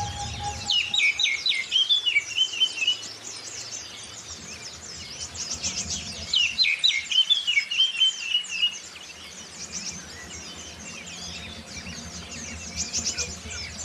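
Oriental magpie-robin (kacer) singing two loud phrases, each a run of sharp falling whistles ending in a rattling trill, over a continuous chorus of high-pitched twittering from white-eyes (Zosterops).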